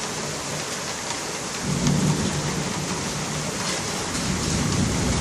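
Heavy rain falling steadily during a thunderstorm. A low rumble of thunder swells about two seconds in and rolls on.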